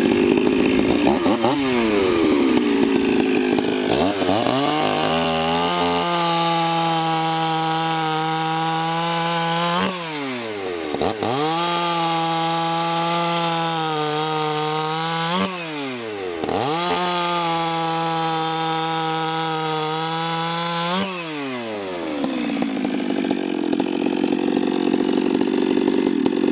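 Stihl 026 two-stroke chainsaw with a modified, opened-up muffler, at full throttle bucking slices off a log. It revs high and free, then pulls down to a lower, steady pitch under load through three cuts. The pitch swoops up and falls off between cuts as the throttle is eased, and it revs free again near the end.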